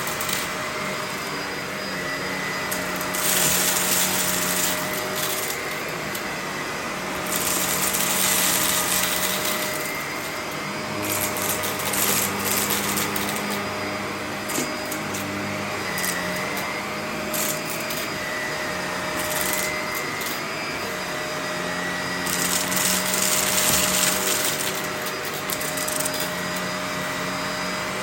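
Vacuum cleaner running continuously with a steady motor whine, its hiss swelling and easing every few seconds as it is pushed back and forth.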